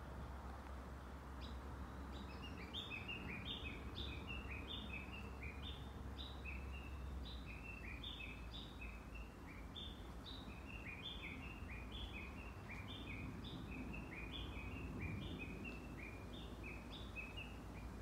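Small birds chirping in a continuous stream of short, high, falling notes, several a second, beginning about a second and a half in, over a steady low outdoor background noise.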